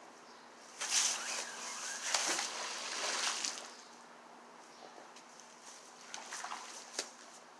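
A 4,200-pound magnet-fishing magnet on a rope splashes into a creek about a second in, with a few seconds of water splashing. It then quiets to a few light ticks as the rope is hauled back.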